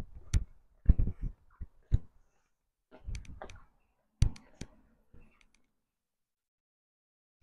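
Footsteps on a cobbled stone path: irregular thuds and sharp clicks that stop about five and a half seconds in.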